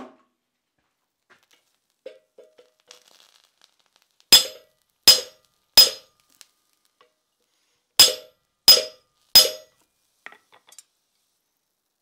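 Hand hammer striking a slitting chisel held in a hot iron bar that sits in a swage on the anvil: two sets of three sharp, briefly ringing blows, with light metal clinks between them as the chisel is set.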